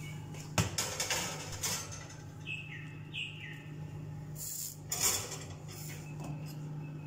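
Glass baking dish scraping and knocking against a metal oven shelf as it is slid in, loudest about half a second in and again around five seconds, over a steady low hum. Two short falling bird chirps sound in the background near the middle.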